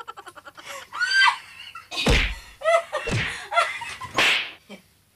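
Women laughing and squealing, with short wordless cries, and two dull thumps about two and three seconds in.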